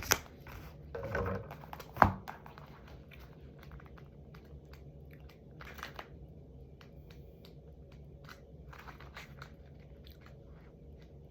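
Close-up handling sounds: a sharp tap at the start, a short rustle, and a louder sharp tap about two seconds in, followed by faint scattered clicks and rustles.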